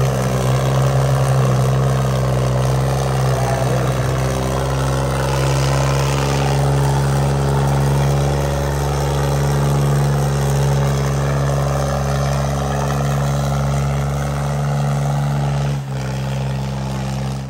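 Tractor's diesel engine running hard at steady revs under a heavy pulling load, one unbroken note that holds its pitch, with a brief dip near the end.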